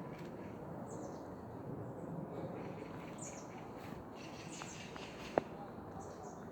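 Small birds calling: short, high, falling chirps several times over a steady low outdoor rumble. A single sharp click about five seconds in.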